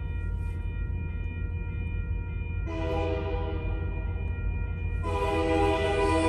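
Locomotive's multi-chime air horn sounding two long blasts for the grade crossing, the first a little under three seconds in and the second, louder, near the end, over a steady low rumble.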